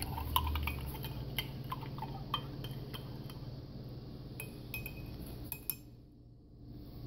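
A spoon stirring pre-workout powder into water in a glass mug, clinking against the glass in scattered strikes, with a few brief ringing clinks a little past halfway. A low steady hum sits underneath.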